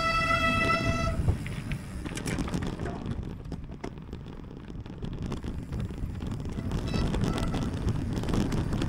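A horn sounding one held note that cuts off about a second in, with a faint shorter toot near the end. Underneath is the steady rumble of wind and tyres from a mountain bike ridden at speed, with scattered clicks.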